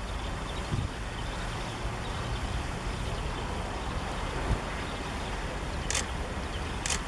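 Steady outdoor background rumble and hiss, like distant traffic or wind. Two short, sharp clicks come near the end.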